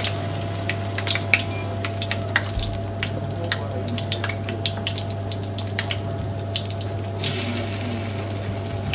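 Bean cakes (akara) deep-frying in hot oil at a gentle, gradual fry: steady sizzling with frequent sharp pops and crackles, over a steady low hum.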